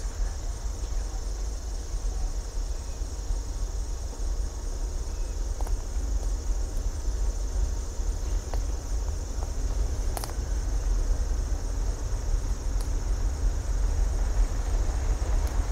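Steady high-pitched insect chorus over a low rumble that grows gradually louder, with a few faint clicks.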